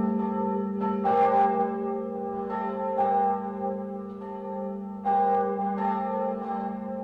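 A large, deep bell struck about three times, each stroke ringing on into the next over a steady low hum.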